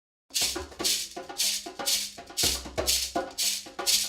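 Background music with a steady beat: a shaker marks about two strokes a second over bass and pitched notes. It starts about a third of a second in.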